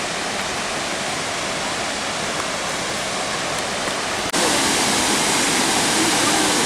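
Waterfall rushing: a steady, dense wash of falling water that jumps suddenly louder and brighter a little over four seconds in.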